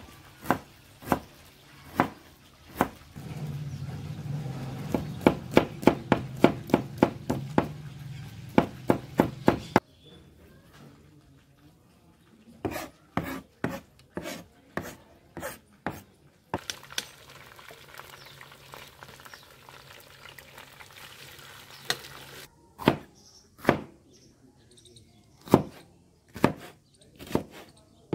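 Chef's knife chopping on a plastic cutting board, mincing garlic: sharp knocks of the blade on the board, slow single chops at first, then a quick run of several chops a second. After that come more irregular chops in short bursts.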